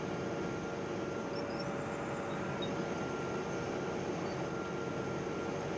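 Wirtgen W 210Fi asphalt milling machine running steadily while cutting asphalt, heard from the operator's seat: an even, continuous machine noise with a faint steady whine.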